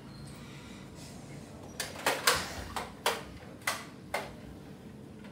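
Nerf foam-dart blaster being worked and fired: a quick run of about seven sharp plastic clacks over some two and a half seconds, starting about two seconds in.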